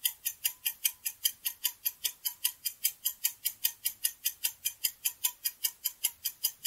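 Countdown-timer sound effect of a clock ticking fast and evenly, about five ticks a second.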